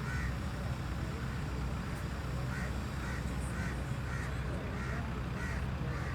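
Steady low engine rumble, typical of heavy construction machinery running, with short high chirps repeating about twice a second from about two and a half seconds in.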